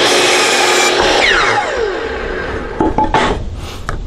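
DeWalt compound miter saw cutting through a pine 2x4. About a second in the trigger is released and the blade spins down with a falling whine; a few short knocks follow near the end.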